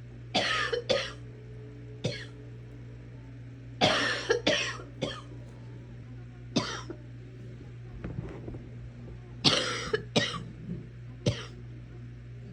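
A sick person coughing repeatedly: short harsh coughs in fits of one to three, a fit every second or two, over a steady low hum.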